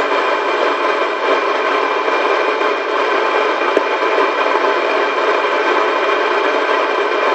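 Steady hiss of static on an open two-way radio channel, with no voice on it.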